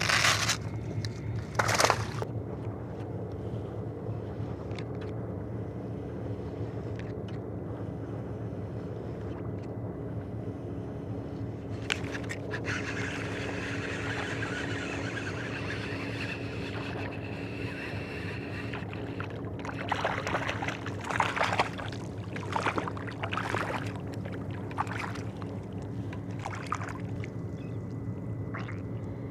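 Steady low hum of a boat engine running, with short splashes and handling noises in the water near the start, again midway, and in a cluster later on.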